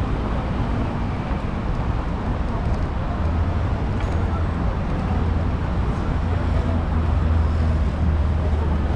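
City road traffic: a steady rumble of passing cars and other vehicles, heavier from a few seconds in.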